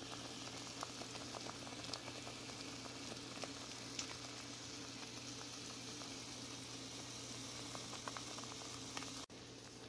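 Tomato pasta sauce simmering in a skillet, bubbling with scattered soft pops over a steady low hum. The sound drops away suddenly near the end.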